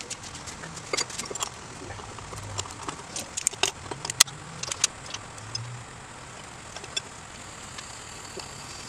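Sharp metallic clicks and clinks of pliers working at the hub of a spoked motorcycle rear wheel, scattered over the first five seconds or so, with one more about seven seconds in.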